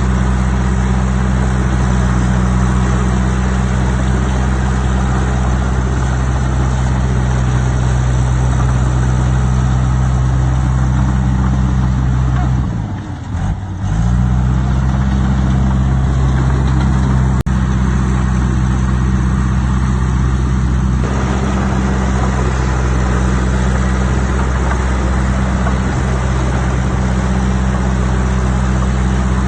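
Heavy diesel engine of an earthmoving machine running steadily. About thirteen seconds in, its speed drops briefly and climbs back up, and a single sharp click follows a few seconds later.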